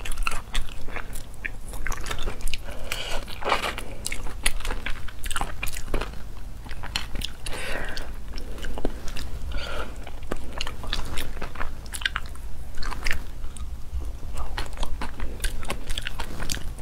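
Close-miked eating of spicy cooked shellfish: shells cracked and peeled apart by hand, with biting and chewing. Many sharp crackles and clicks come throughout.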